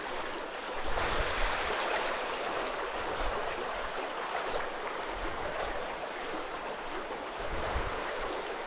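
Steady rush of flowing river water, with a few low bumps underneath.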